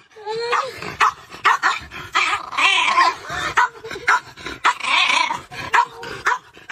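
A dog vocalizing in a rapid, uneven run of short whines, yips, barks and growls, the calls bending up and down in pitch.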